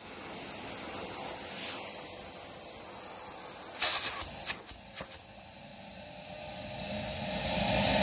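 Bosch Ergomax 2000 W vacuum cleaner running at full power with a high whine, its washed filter letting it run again. About four seconds in there are a few sharp knocks and the running noise drops away suddenly, then builds back slowly with a faint whine rising in pitch.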